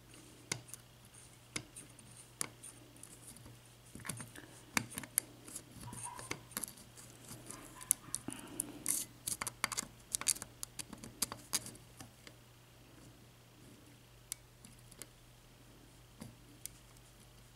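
Small pick working the pins inside a Kasp 14040 padlock under tension: a run of light metallic clicks and scrapes, sparse at first, thickest in the middle, then thinning out, as the pins are lifted one by one toward a false set.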